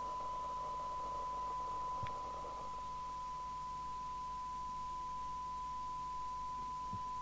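Steady 1 kHz test tone: the signal generator's 1 kHz modulation received and reproduced by a Mustang 3000 CB27/81 FM CB radio during a SINAD receive-sensitivity measurement. A faint hiss lies under it and eases off about two and a half seconds in, and there is one small click about two seconds in.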